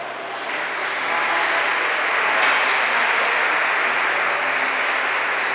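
A dense, even rushing noise that swells about half a second in and then holds steady.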